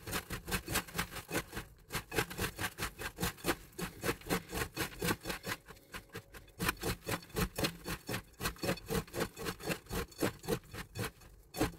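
Fingertips rubbing butter into crushed digestive biscuits and chopped walnuts in a pan to make a crumble topping: a quick, rhythmic crunchy rubbing, several strokes a second.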